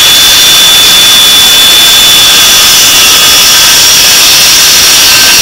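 Circular saw running at full speed and cutting through a sheet of OSB: a loud, steady high whine over the rasp of the blade in the board.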